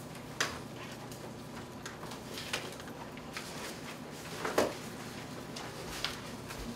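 Room tone in a quiet computer lab: a steady low hum with a few scattered taps and knocks, the loudest about four and a half seconds in.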